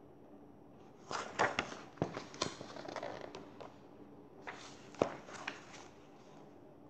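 Paper pages of a picture book being turned and handled: rustling with a few crisp flicks, in two bouts, the first starting about a second in and the second about halfway through.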